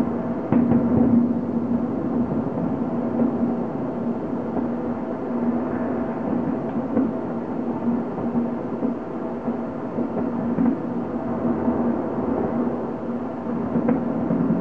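Many fireworks and firecrackers going off at once: a continuous rumbling crackle, with a few louder single bangs about half a second in, around two-thirds of the way through, and near the end.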